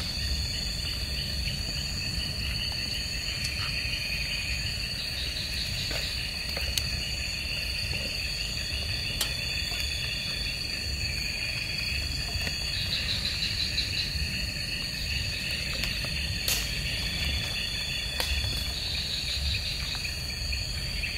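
Night insects in a forest chorus, a steady high-pitched buzz with pulsing trills layered over it, along with a few faint clicks.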